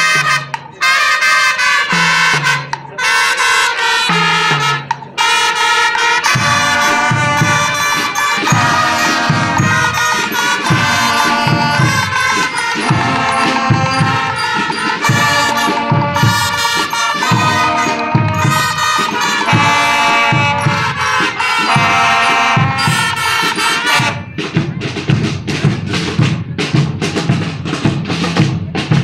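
Student brass-and-percussion marching band playing. It opens with separate brass chords punctuated by drum hits, then the full band plays over a steady drum beat. About five seconds before the end the brass stops and only the drums carry on.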